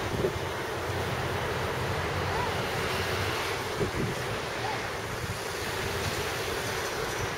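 Steady outdoor background noise: a low rumble of road traffic mixed with wind on the microphone.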